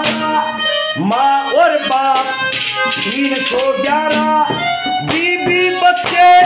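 Instrumental interlude of a Haryanvi ragni: a reedy melody with sliding, wavering notes over a steady run of drum strokes, with a harmonium playing.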